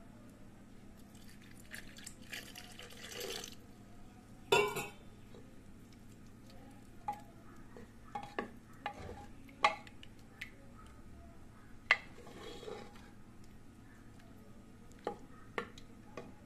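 Wooden spoon stirring and scraping thick bottle gourd curry in a pressure cooker pot, with scattered knocks of the spoon against the pot; the sharpest knock comes about four and a half seconds in, and more follow from about seven seconds on.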